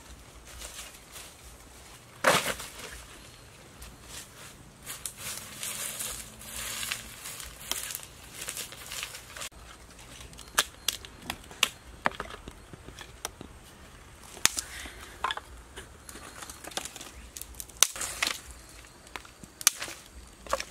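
Dry sticks being handled: scattered sharp snaps and knocks of wood on wood, with dry leaf litter crunching and rustling in between.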